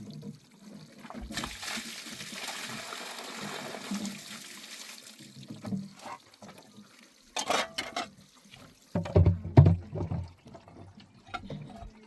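Water running for about four seconds, then a few knocks and a cluster of heavier thumps.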